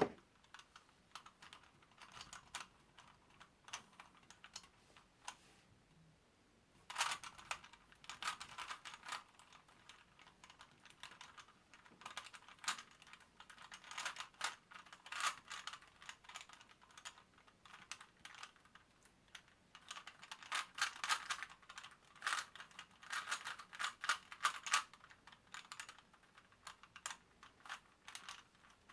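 Rubik's brand cube being turned in a speed solve: quick runs of clicking and clacking as the plastic layers are twisted. There are only a few scattered turns over the first several seconds, then fast bursts of turning separated by short pauses.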